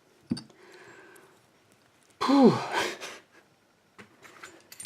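A man's loud, breathy "whew", an exhale of relief whose pitch rises and then falls. A sharp click comes just before it, and a few faint small clicks near the end.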